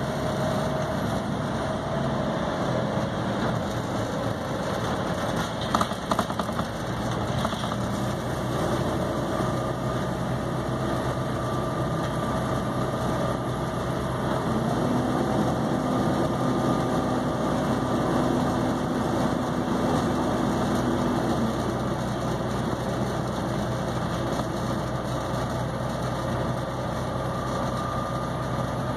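Volvo B7TL double-decker bus's 7.3-litre diesel engine running steadily, with a few short knocks about six seconds in.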